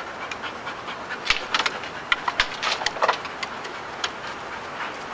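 Dog panting in short, irregular breaths.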